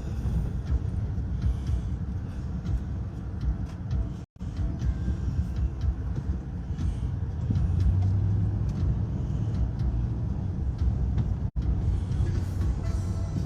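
Steady low road and engine drone heard from inside a moving car, with a stronger hum for a couple of seconds past the middle. The sound cuts out completely for an instant twice, about four seconds in and again near the end.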